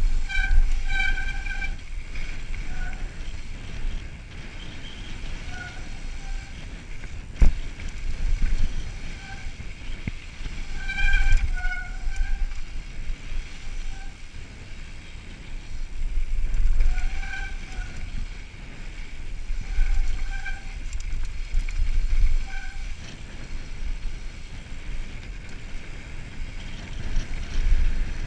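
Wind buffeting the camera microphone and knobby tyres rumbling on a mountain bike descending a dirt singletrack, with short high squeals from the bicycle's brakes coming in clusters every few seconds as the rider checks speed. A single sharp knock about seven seconds in.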